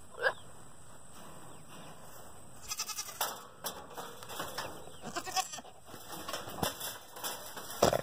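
Billy goat making weird courting noises aimed at the does: a short call near the start, then from about three seconds in a string of short clicking, sputtering sounds.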